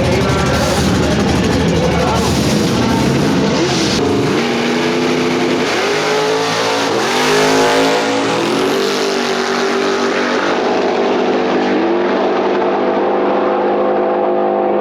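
Street-race cars accelerating at full throttle. A loud, dense engine noise is followed about four seconds in by an engine note that climbs and falls back several times as it shifts up through the gears, then holds steady while the highs fade as the cars pull away.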